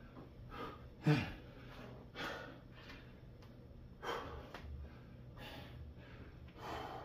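A man breathing hard while exercising: a string of short, forceful exhalations every second or so. The loudest, about a second in, has a brief voiced grunt in it.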